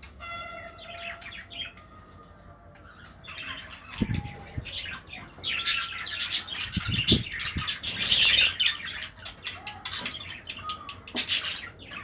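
A flock of budgerigars chirping and chattering in quick, overlapping calls, with a few held whistled notes near the start. The chatter grows louder and busier a few seconds in.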